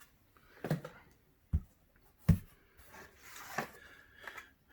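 A few sharp knocks and thumps, with some rustling, as boxed collectibles are handled and set down on a hard surface. The third knock, about two seconds in, is the loudest.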